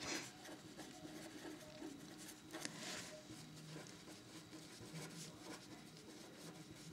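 Felt-tip pen writing on paper: faint, irregular scratching strokes as words are written out.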